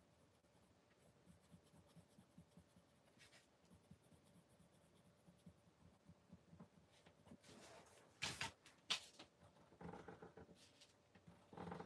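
Coloured pencil scratching faintly on paper as it is worked over a drawing, with a few louder sharp clicks about eight seconds in.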